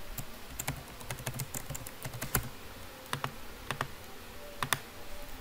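Typing on a computer keyboard: irregular, scattered key clicks.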